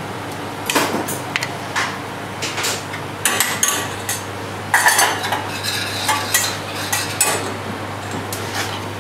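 Metal kitchen utensils and a small stainless-steel saucepan clinking and knocking in irregular strokes, over a steady low hum.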